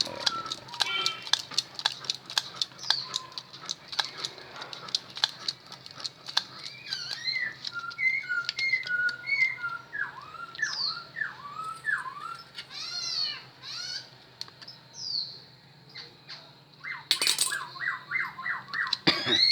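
A bird chirping over and over in short, curved calls, over a run of rapid sharp clicks during the first several seconds, with a brief loud rustle near the end.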